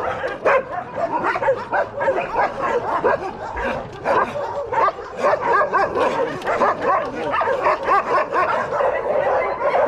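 Several dogs barking, yipping and whining at once in a steady, overlapping din of short, high calls.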